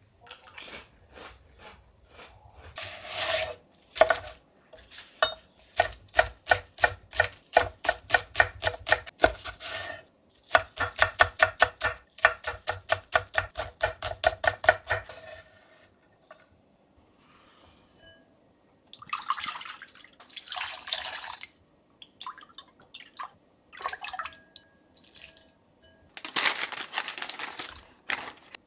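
Kitchen knife chopping green onions on a wooden cutting board, a fast, even run of chops through the first half. Later, liquids are poured from a bottle into a steel measuring cup and tipped into a glass bowl.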